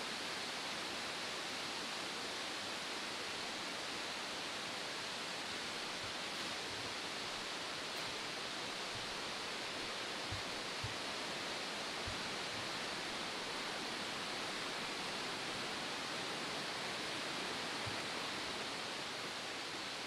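Steady rushing of Shiraito Falls, hundreds of large and small streams of spring water pouring down a curved cliff face. A couple of soft low thumps come about halfway through.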